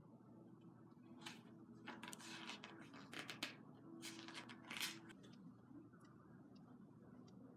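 Faint rustling and handling noises: several short, soft scraping bursts in the middle, over a low steady hum.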